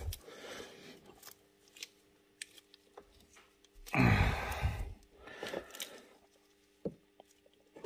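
Thread-cutting die being turned by hand on the quad's variator shaft, re-cutting a thread stripped when the nut worked loose: metal scraping with scattered small clicks. There is a louder scrape about four seconds in and a shorter one near six seconds.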